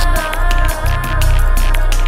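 Electronic background music with a deep bass and a fast drum beat, a synth melody held over it.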